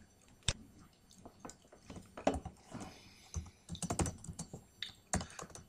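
Typing on a computer keyboard: irregular key clicks with short pauses between runs.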